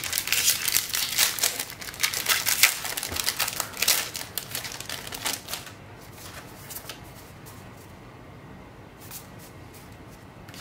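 A Magic: The Gathering booster pack's plastic foil wrapper crinkling and being torn open, a dense crackle of many quick clicks that dies away about halfway through, followed by a few light clicks of the cards being handled.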